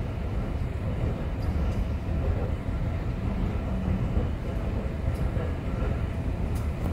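Steady low rumble of a vehicle in motion, heard from inside, with a few faint clicks over it.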